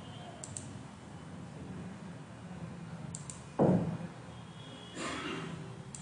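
Computer mouse clicking in quick pairs over a steady low hum. A sudden loud thump comes about three and a half seconds in, and a short noisy rush follows about five seconds in.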